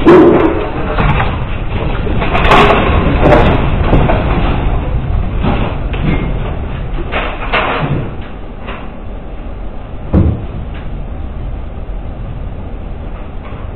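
A room shaking in an earthquake: a continuous low rumble with repeated rattling and knocking of loose fittings. It dies down after about eight seconds, then there is one sharp knock about ten seconds in.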